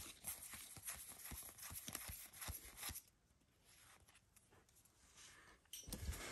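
Pokémon trading cards being slid one behind another in the hand, a run of faint flicks and ticks for about three seconds, then near quiet, then a few more ticks and a sharper tap near the end.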